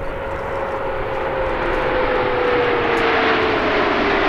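A formation of CT-114 Tutor jets, each with a single J85 turbojet, flying overhead. A steady jet roar grows louder, and a whine in it slowly drops in pitch as the jets pass.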